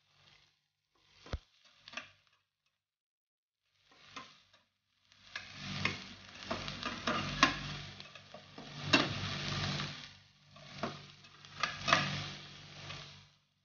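Slotted metal spatula scraping and clanking against a stainless steel pan as diced onion, garlic and bell peppers are stirred and sautéed, with a light sizzle. A few short scrapes come first, then steady stirring from about five seconds in with several sharp clanks.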